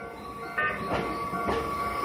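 Japanese level-crossing alarm ringing its repeating electronic bell tone, about two strokes a second. About half a second in, a Keio Inokashira Line electric train arrives through the crossing, and its rumble and wheel noise grow louder under the bell.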